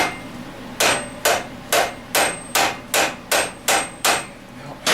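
Hammer tapping about ten times, roughly two blows a second, on a stuck part of a Tecumseh small engine that is being knocked loose without a gear puller; some blows leave a faint metallic ring.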